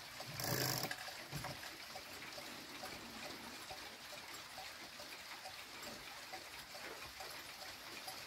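Mechanical cuckoo clock running after its pendulum is set swinging, with faint ticking from the movement. A brief rustle of handling starts it off.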